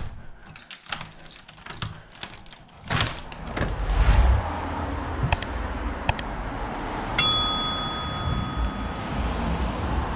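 Light clicks and knocks, then a steady low rumble from about three seconds in. About seven seconds in, a single sharp metallic ding rings on for about a second.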